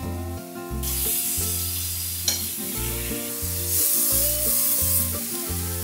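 Blocks of pork sizzling as they sear in a hot frying pan while they are turned over with metal tongs; the sizzle grows louder about a second in and again around four seconds. One sharp click a little past two seconds.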